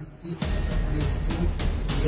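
Background music with a deep, heavy low end, coming in about half a second in.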